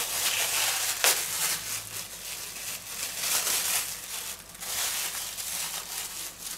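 Thin plastic bag crinkling and rustling in uneven spells as hands peel it off a lump of raw minced meat, with one sharper crackle about a second in.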